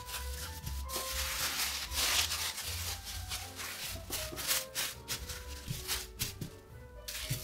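Thin plastic bag crinkling and rustling under hands that knead and press soft cookie dough inside it, flattening it into a disc. The crinkling is busiest about two seconds in.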